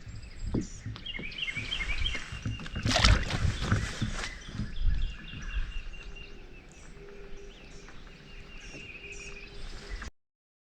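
Knocks and handling noises on a fishing kayak, with a brief rush of noise about three seconds in, while birds chirp repeatedly. The sound cuts off just before the end.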